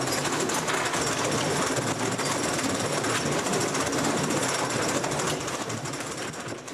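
Pneumatic drill hammering steadily and rapidly, dying away near the end.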